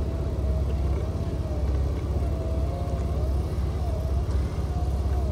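Jeep Cherokee XJ engine running as it is worked to drive out of a snowy ditch: a steady low rumble with a whine that wavers up and down in pitch.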